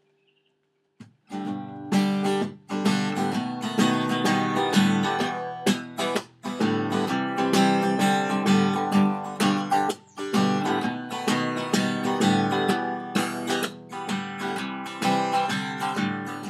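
Acoustic guitar strummed in chords, starting about a second in.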